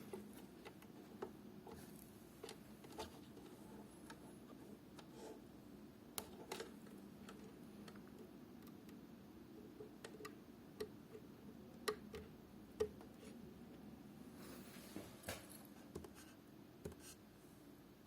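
Faint, irregular clicks and ticks over a low steady hum, an unwanted extraneous noise from the device.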